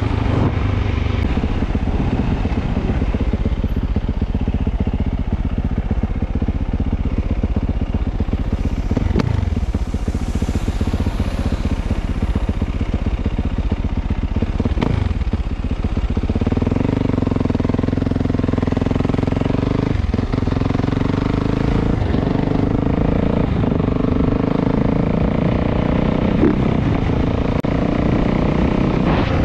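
Motorcycle engine running continuously, its pitch dipping and rising a couple of times under the throttle, then holding a steadier note from about halfway through.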